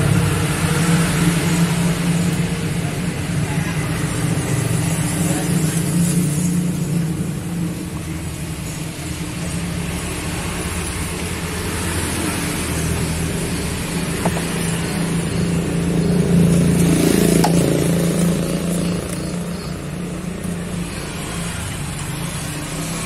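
A motor vehicle engine running steadily with a low hum, growing louder about two-thirds of the way through.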